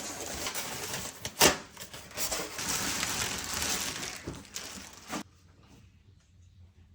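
Crinkling, rustling handling noise with one sharp snap about a second and a half in; it cuts off abruptly about five seconds in, leaving only faint ticks.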